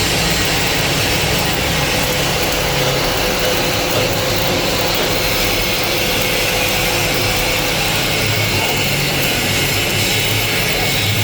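Stick-welding arc crackling steadily as an E6013 electrode lays a hot pass, with a low hum underneath.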